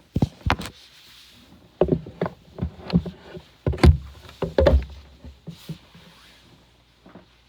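A series of irregular knocks and thumps, about a dozen over five seconds, the heaviest ones about four seconds in.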